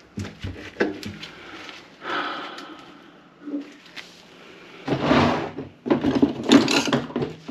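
Clicks and knocks of parts being handled at a kitchen sink, with two short, louder bursts of noise near the end.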